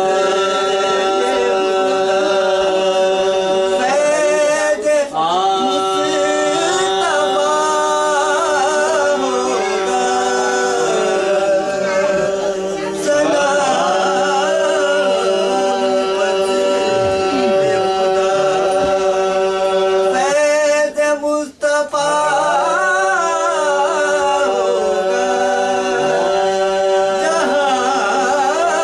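Several men singing a Muharram marsiya, with wavering melodic lines over a steady held drone. The singing breaks off briefly about twenty-one seconds in.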